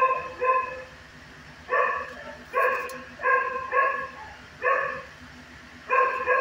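A dog barking: about eight short barks, in irregular singles and pairs.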